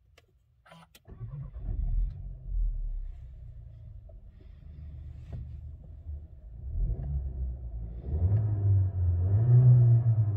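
SEAT Ateca's 1.5 TSI turbocharged four-cylinder petrol engine starting: a short crank of the starter about a second in, a brief flare of revs as it catches, then idling at about 1,000 rpm. From about seven seconds it is revved up and held around 3,000–3,500 rpm with the car standing still.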